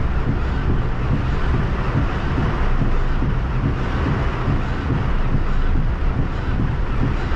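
Heavy rain and strong wind beating on a car's windscreen and body, a loud, steady rushing hiss over a deep rumble.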